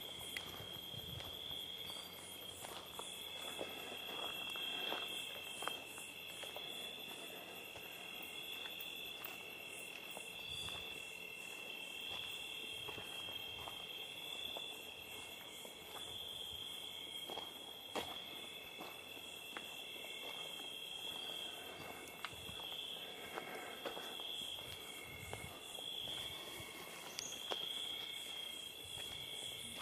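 Night chorus of rainforest insects: several steady high trills at different pitches layered together, with a fast, even pulsing buzz above them. Occasional soft clicks and rustles come through.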